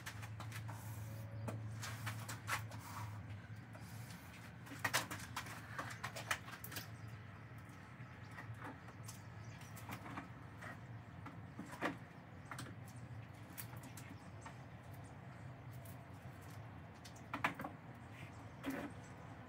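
Scattered light clicks, knocks and scrapes of a metal rod being worked through a funnel into a boat transom freshly filled with pourable transom compound, over a low steady hum.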